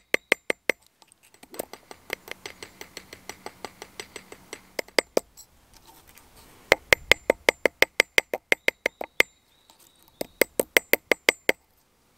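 Hammer tapping cold copper, quick ringing metallic strikes about six a second. They come in runs with short pauses, softer in the first long run and loud again about halfway through.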